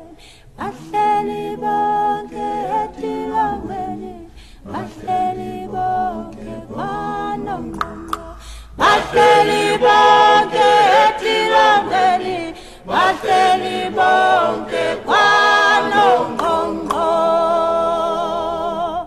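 Unaccompanied choir singing in harmony, several voices on long held notes. It grows louder from about halfway in, and a long wavering note is held near the end.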